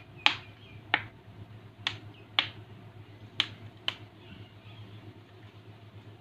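Sharp, irregular clicks and taps, about six in the first four seconds, over a low steady hum, as a motorcycle's aluminium cylinder block is handled and rinsed.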